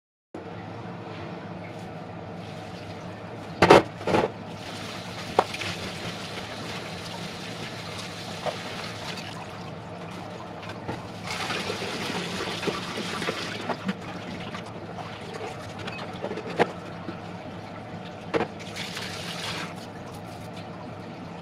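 Water splashing and dripping into a stainless-steel sink as chopped cabbage and pumpkin are rinsed in a plastic colander. A few sharp knocks and clatters sound, the loudest about four seconds in, over a steady low hum.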